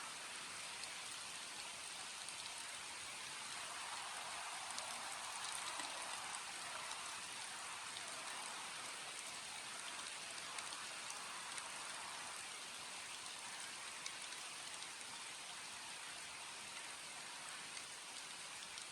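Steady rain falling, with individual drops ticking through it; it swells slightly a few seconds in.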